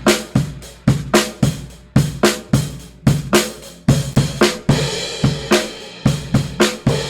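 Acoustic drum kit playing a steady beat of kick, snare and cymbals, picked up by a single mono microphone in front of the kit and heard with the console EQ switched out.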